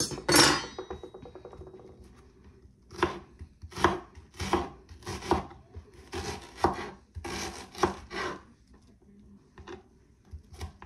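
Kitchen knife chopping onion and green bell pepper on a wooden cutting board: a short clatter at the very start, then a run of irregular chopping strokes from about three seconds in, thinning out near the end.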